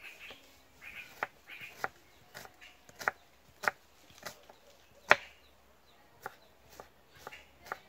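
Kitchen knife chopping onion on a cutting board: a run of sharp, irregular strikes about two a second, the loudest about five seconds in.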